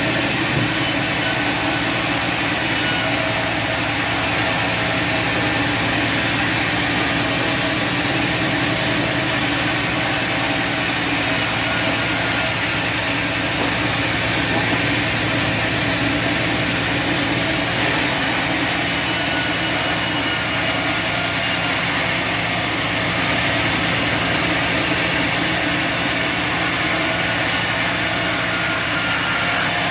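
Bandsaw sawmill running steadily: a constant motor hum with the band blade sawing through wood, the level unchanging throughout.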